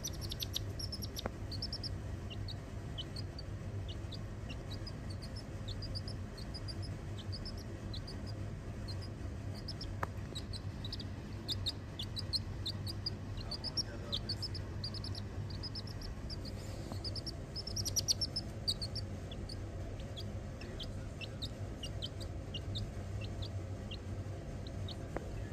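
Domestic chicken chick peeping: a stream of short, high cheeps, several a second, thickest in the middle and thinning out near the end, over a low steady hum.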